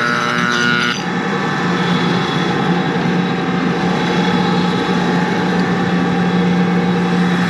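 Corn grain dryer running loud and steady, with a constant low hum and a higher steady tone. A higher whine in the mix cuts off about a second in.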